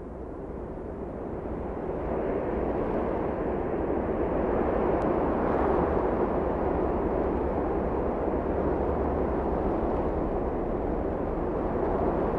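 A steady, deep rushing noise that swells up from silence over the first couple of seconds, holds without any rhythm or tone, and eases off near the end.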